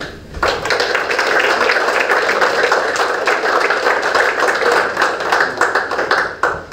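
Audience applauding, many hands clapping together. It starts about half a second in and cuts off shortly before the end.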